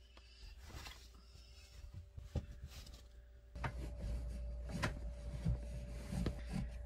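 Bedding and blankets rustling as a bed is made and the sheets are tucked in, with a few knocks against the bed frame. A steady low hum lies beneath.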